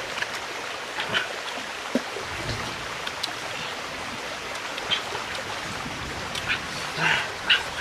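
Stream water running steadily over rocks, with a few short sounds dotted on top, most of them near the end.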